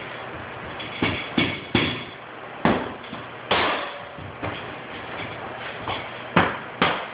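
Hammer or mallet blows on solid hardwood flooring boards, about nine sharp knocks at an uneven pace, each ringing briefly.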